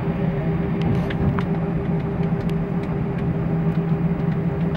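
Airbus A320's jet engines running at taxi power, heard inside the cabin as a steady hum with a low drone and a higher steady tone, and a few faint clicks.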